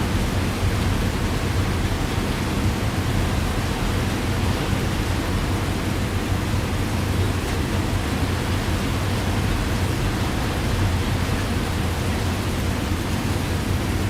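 Steady heavy rain: an even hiss with a constant deep rumble underneath.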